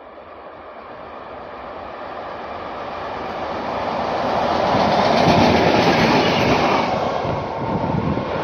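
Diesel-hauled train approaching on the main line, its engine and wheels on the rails growing steadily louder to a peak about five and a half seconds in, with the clickety-clack of wheels over rail joints.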